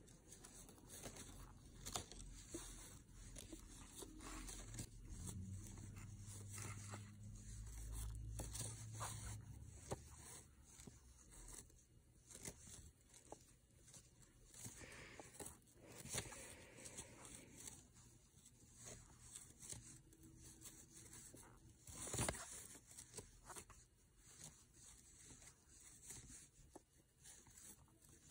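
Faint rustling and scraping of yarn being drawn through loops by a metal crochet hook, with scattered small clicks of the hook and a sharper tap about two-thirds of the way through. A low hum comes and goes in the first half.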